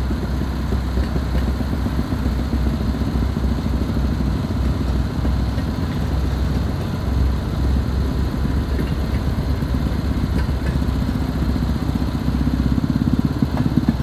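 Small railroad motorcar (speeder) engines running with a rapid, steady putter. Near the end a second motorcar grows louder as it pulls up close.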